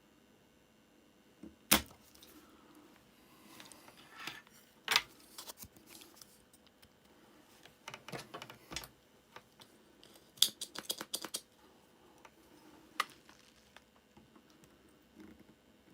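Sharp snaps and clicks of a spring-loaded solder sucker being cocked and fired during desoldering, with lighter handling clicks between. The loudest snaps come about two seconds in and in a quick run around ten seconds in.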